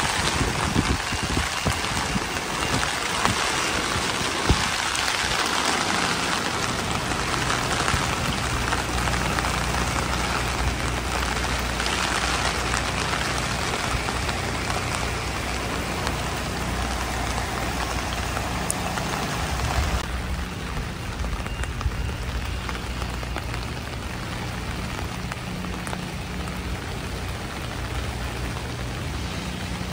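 Steady rain falling, a dense even hiss of drops that eases slightly about twenty seconds in. From about five seconds in, a low steady mechanical hum runs underneath the rain.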